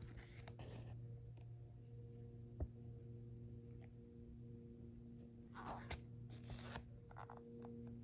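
Paper being handled: a few short soft rustles at the start and again about five and a half seconds in, and a sharp little click about two and a half seconds in, over a steady low hum.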